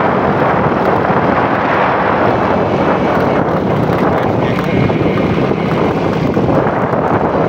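Motorcycle engine running steadily while the bike is ridden, with wind buffeting the microphone.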